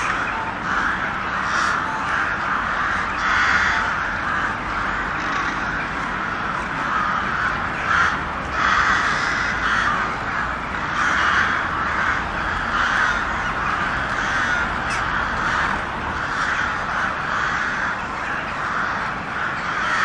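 A flock of crows cawing, many calls overlapping without a break.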